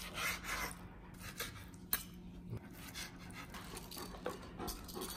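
Knife and fork cutting cooked steak on a plastic cutting board, then metal tongs setting the pieces on plates: light scraping and clinking of utensils, with one sharp click about two seconds in.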